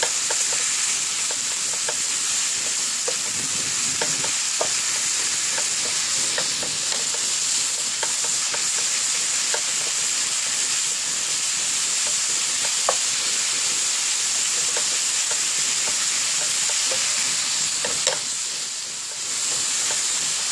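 Beef sizzling in a nonstick frying pan as it is stir-fried, a steady hiss with scattered clicks and scrapes of a wooden spatula against the pan. The sizzle dips briefly near the end.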